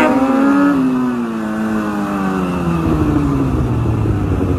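Sport motorcycle engine during a wheelie, its revs falling steadily over several seconds, with a rougher noise building under it about three seconds in.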